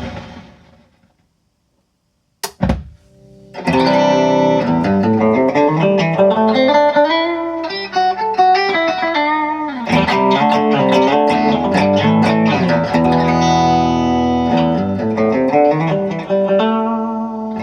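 Electric guitar played through a Tophat Club Royale tube amp. A ringing note dies away to silence, then a short sharp pop comes about two and a half seconds in, and from about three and a half seconds on there is continuous playing of chords and single notes. The amp has an intermittent fault that thins its tone, and flipping its standby switch brings static noises.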